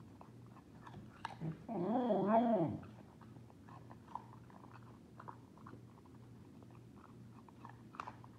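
Pembroke Welsh corgi giving one short howl ("awoo") of about a second while eating, its pitch wavering up and down, about two seconds in. Small crunches and clicks of her eating from the bowl run around it.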